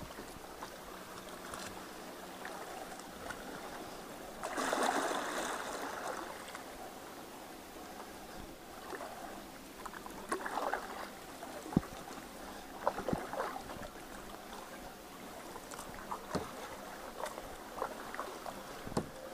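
Kayak paddling on calm water: paddle blades dipping and dripping, with scattered sharp clicks and knocks. A louder rush of water comes about five seconds in.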